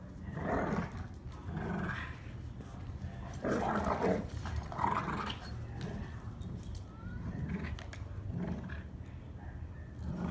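Two dogs growling in play while tugging at a toy between them, in short irregular bursts, loudest about three and a half to five seconds in.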